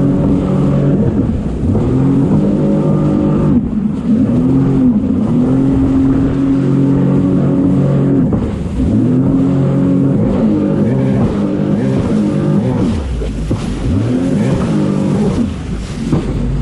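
Jet ski engine running, holding a steady pitch for stretches and dipping and rising again several times as the throttle is eased off and opened.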